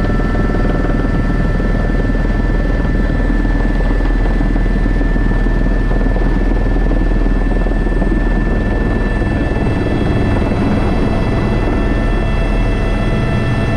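Airbus H125 (AS350 B3) helicopter running steadily in flight: a constant rotor and engine noise with a steady high turbine whine over it.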